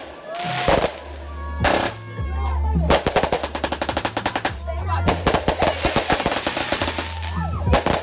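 Ground fireworks going off: a couple of loud single bangs, then from about three seconds in a fast run of sharp shots, several a second, as a multi-shot firework fires its barrage.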